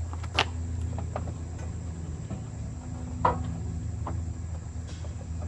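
Two sharp knocks as a Warn winch is set down into position on a steel bumper, one just under half a second in and a louder one a little past three seconds, with a few faint ticks between. A steady low hum and a thin, steady high whine run underneath.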